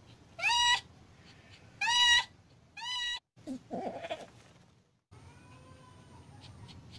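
A domestic cat (the queen) in labour, a kitten emerging, meows three times in quick succession, each call short with a pitch that rises and falls. A lower, rougher sound follows about a second later.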